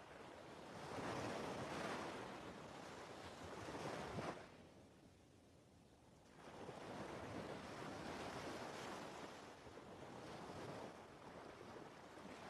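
Soft rushing noise that sounds like surf or wind, with no engine or propeller tone: it swells for a few seconds, drops into a lull about four seconds in, then swells again more gently.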